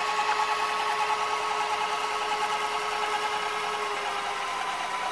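White Westinghouse WVCP-8000 VHS player rewinding a cassette at high speed: a steady whir of the reel drive and spinning tape reels, its pitch sagging slightly near the end as the rewind nears the start of the tape.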